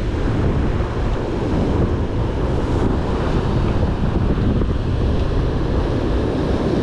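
Wind buffeting the microphone over rough surf breaking on the rocks, a steady, loud rushing noise.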